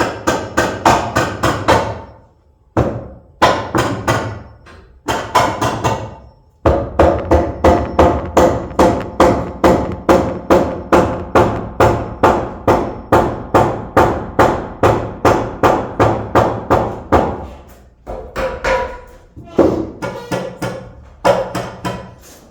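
Hammer driving nails through metal joist hangers into wooden floor joists: runs of quick, ringing blows, about three a second, in short bursts at first and then one long run through the middle.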